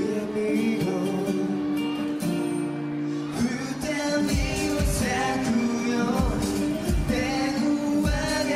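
Male voices singing a J-pop song live into microphones over a backing track; after a sparse, quieter opening, a steady drum beat comes in about three and a half seconds in.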